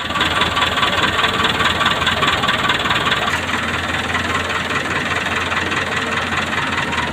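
Diesel engine of heavy machinery running steadily; its sound changes about three seconds in.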